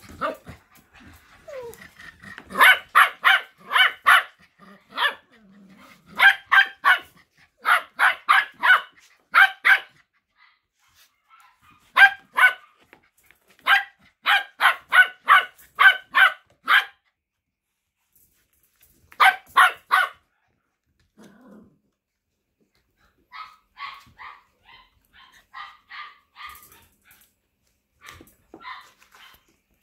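Eight-week-old mini goldendoodle puppy barking in quick strings of several small barks, with pauses between the strings. In the last few seconds it turns to fainter, quicker yips.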